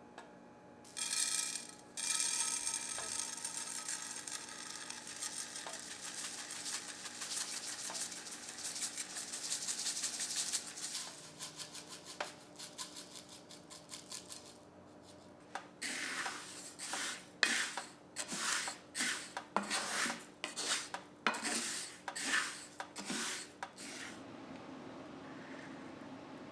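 Coarse salt being stirred and scraped in a pan for hot-salt roasting. A steady gritty rasping runs for about the first half, then comes a run of short separate scraping strokes, about two a second.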